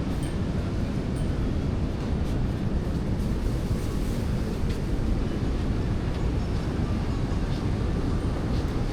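Steady low rumbling noise of large ocean surf breaking on a beach.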